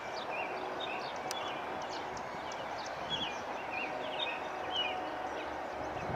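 Small birds chirping in short, repeated calls over a steady outdoor background hiss.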